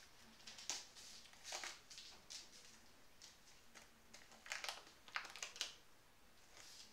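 Burmese kittens at play on a tiled floor: quiet, scattered scrapes and taps of paws and claws skittering on the tiles, with the light rustle of a string toy. The noises come in short bursts, bunching up a little past the middle.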